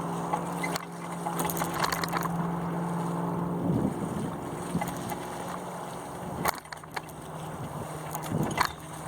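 Wind and water noise from a small sailboat under sail, picked up by a mast-mounted camera. A steady low hum fades in and out, with a few sharp knocks and rattles from the rig.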